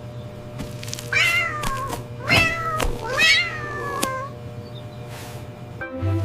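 A cat meows three times in quick succession, each meow falling in pitch, the last one the longest.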